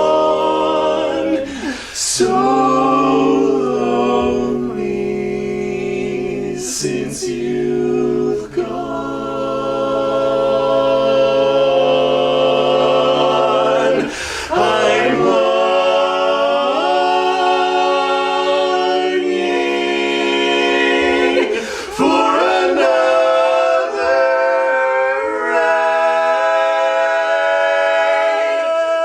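A cappella vocal harmony: several voice parts hold sustained chords that change every few seconds, with short breaks between phrases.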